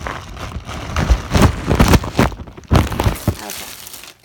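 Handling noise on a phone's microphone: a string of loud knocks and rubbing as the phone is set down and moved, dying away near the end.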